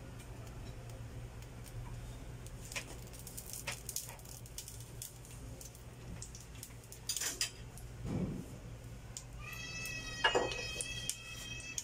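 Clinks and taps of a stainless steel pot and a plastic oil bottle as cooking oil goes into the pot on a gas stove, over a low steady hum. Near the end a long, even, high-pitched cry with overtones lasts about two seconds.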